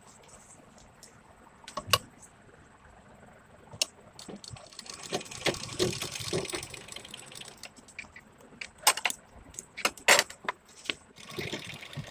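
Cloth rustling as fabric is turned and handled, with irregular sharp clicks and a light metallic rattle as it is worked at a sewing machine, the clicks bunching together near the end.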